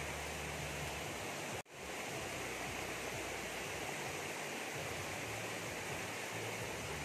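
Steady rushing noise with no separate events in it, cutting out for an instant about one and a half seconds in.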